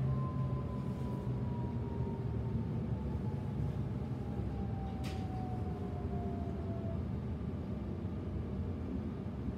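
Inside the carriage of a Sydney Trains Millennium electric train slowing toward a station: a steady low rumble of wheels and running gear, with a thin traction-motor whine falling slowly in pitch over about seven seconds as the train brakes. A short sharp click about five seconds in.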